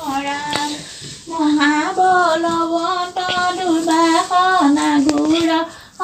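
A woman's voice singing a slow devotional hymn in long, held notes that step between a few pitches. There is a short break for breath about a second in.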